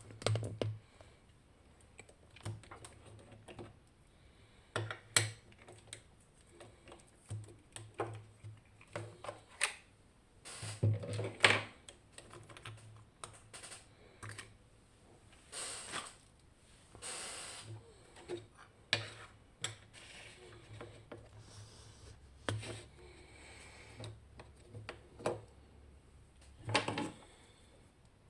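Irregular clicks, taps and light knocks of a metal lock and tools being handled, with a louder cluster of knocks about 11 seconds in.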